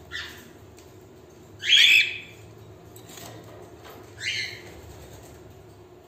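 Female cockatiels calling: three short, high chirping calls, a faint one at the very start, the loudest about two seconds in and lasting about half a second, and another about four seconds in.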